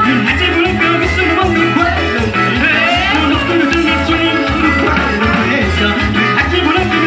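Live band playing Latin dance music, a steady bass beat about twice a second under busy melodic instruments and a voice.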